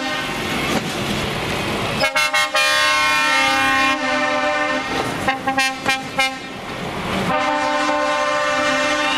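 Heavy trucks' air horns sounding a chord: a two-second blast about two seconds in, a run of short toots around five to six seconds, and a long steady blast from about seven seconds on. Before the first horn, the diesel engines of the trucks pulling away.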